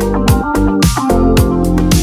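Background music: keyboard chords over a steady beat, with a low kick drum about twice a second.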